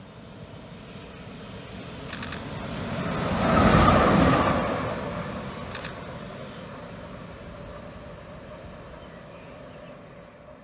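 Siemens class 189 electric locomotive running light through a station: its rumble and rail noise swell as it approaches, peak as it passes about four seconds in, then slowly fade as it moves away.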